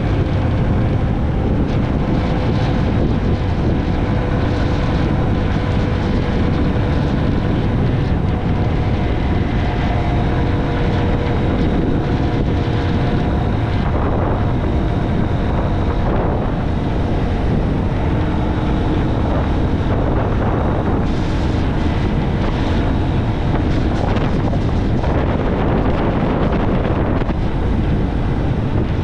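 Motorcycle riding at road speed: a steady engine hum buried under continuous wind noise buffeting the microphone.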